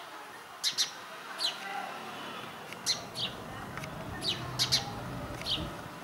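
Small bird chirping: about ten short, sharp chirps at uneven spacing, each sliding steeply down in pitch.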